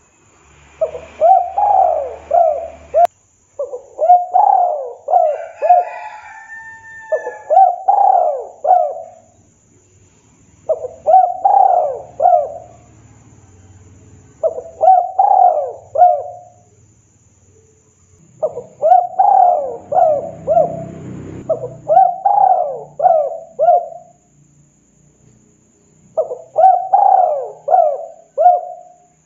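Spotted dove cooing: about eight phrases a few seconds apart, each a quick run of four or five rising-and-falling coos.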